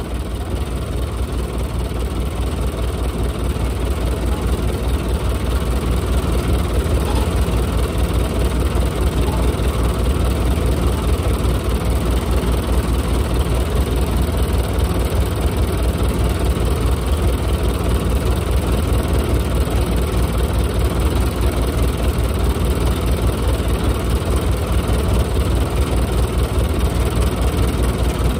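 Heavy diesel engine of a tracked farm machine running steadily with an even low pulsing, getting a little louder over the first few seconds.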